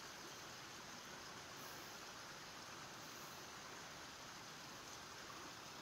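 Faint, steady outdoor hiss with no distinct events: quiet mountain ambience.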